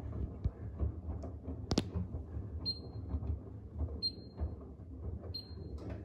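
Miele W1 front-loading washing machine in its wash cycle, its drum turning the wet load with a low rumble. About two seconds in there is one sharp click, followed by three short, high beeps from the touch control panel, evenly spaced about a second and a half apart.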